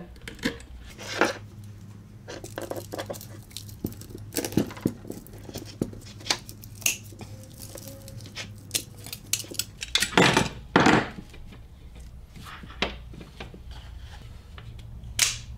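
Heavy cable cutters biting through thick 1-gauge copper battery cable to cut off its terminal: a run of small crunching clicks as the handles are worked, with two louder crunches about ten seconds in and a sharp click near the end.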